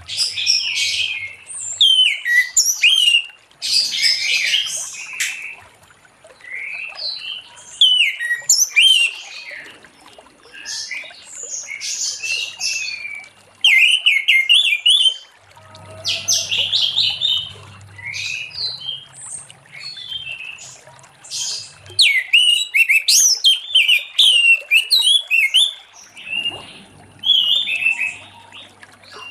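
Orange-headed thrush singing its full song: a run of quick, varied phrases of sliding whistled notes, one after another with short pauses between them.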